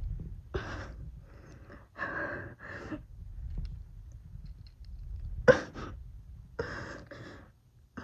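A person breathing hard during push-ups: short, forceful breaths, mostly in pairs every couple of seconds, with one sharp louder gasp about halfway through.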